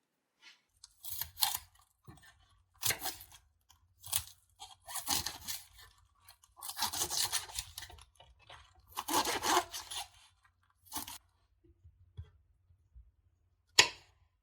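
Kitchen food preparation: a series of irregular rasping strokes, each under a second long, with one sharp knock near the end.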